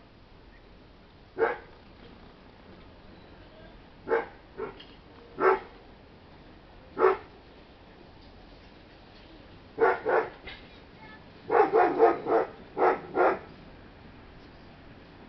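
A dog barking in short single barks at irregular intervals, then a quicker run of barks about three-quarters of the way through.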